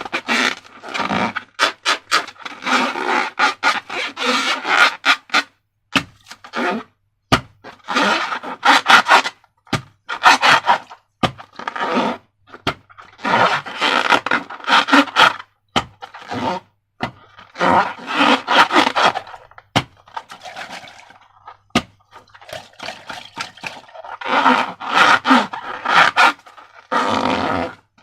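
Slime being squished and worked by hand: wet, sticky squelching full of crackling pops, in repeated bursts of a second or two with short pauses between.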